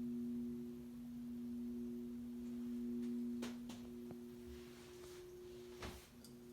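1972 Southern Breeze Fairwind ceiling fan's motor running on low speed, giving a steady pitched hum; the lower note of the hum drops in level about three seconds in. A few faint clicks come in the second half.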